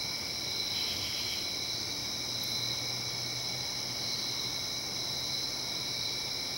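A steady chorus of night-singing insects such as crickets, several high trills layered at different pitches and running without a break.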